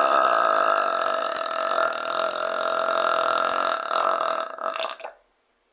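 A woman's long, loud belch, held at one steady pitch and cutting off sharply about five seconds in.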